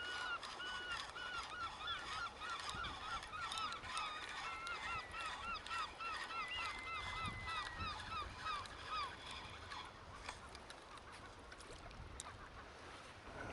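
A flock of geese honking, many short calls in quick succession that fade out about nine seconds in.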